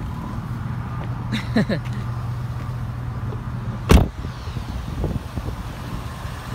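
Car engine idling with a steady low hum, and a car door shut once with a sharp thump about four seconds in.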